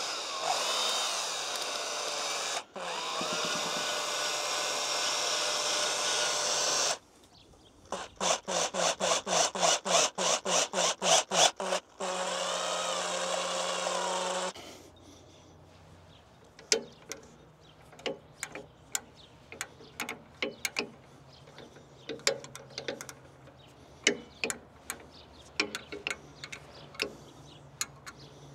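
Power drill-driver running, most likely tightening a steel hose clamp. It runs steadily for several seconds with a brief break, then comes in short pulses about four a second, then runs steadily again. After that come quieter scattered clicks and knocks of handling.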